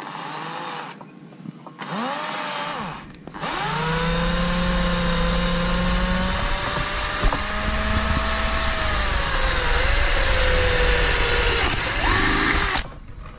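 SP Tools power drill with a 1/4-inch bit drilling holes in a plastic rear valance: two short bursts of the motor spinning up and down, then one long steady run of about nine seconds that stops shortly before the end.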